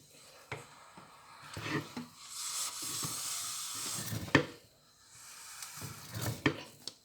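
Spoon stirring and knocking against a pot of thick maize pap, with a soft hiss from the hot food; a sharp knock about four seconds in is the loudest sound.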